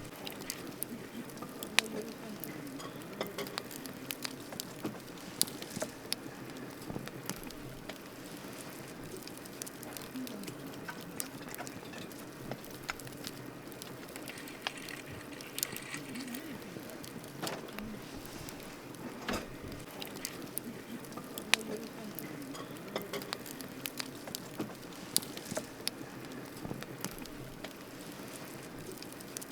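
Wood campfire burning, crackling with irregular sharp pops over a steady hiss.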